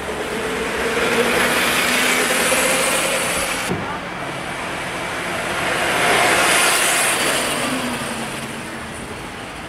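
Hydrogen fuel-cell electric kart passing by twice, each pass a rise and fall of tyre and air rush with a faint electric motor whine that drops in pitch, and no combustion engine note. The first pass breaks off abruptly a little before the middle.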